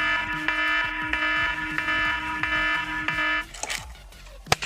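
A steady, buzzer-like tone holds for about three and a half seconds, then a single sharp bang comes near the end: a homemade pataka gun firing a charge of matchstick-head powder.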